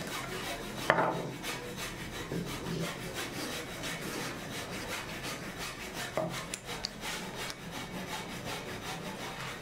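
A hand tool rubbed rapidly back and forth over a small wooden kumiko strip held in a jig, a quick run of short rasping strokes at several a second. A sharper knock of wood on wood comes about a second in, and a lighter one later.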